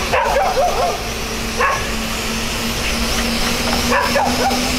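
Visuo XS812 GPS quadcopter's propellers humming steadily as it descends under return-to-home, the hum creeping slightly higher in pitch partway through. Short barking calls break in near the start, once about one and a half seconds in, and again near the end.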